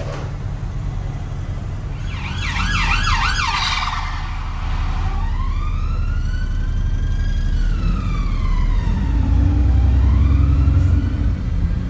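Emergency vehicle siren: a couple of seconds of fast warbling yelp, then a slow wail that rises, falls and starts to rise again. Under it is the steady low rumble of a London double-decker bus's engine.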